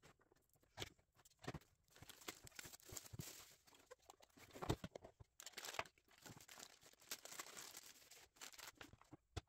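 Faint crinkling and rustling of a diamond painting kit's packaging being opened and unpacked, with scattered clicks and knocks as the contents are handled.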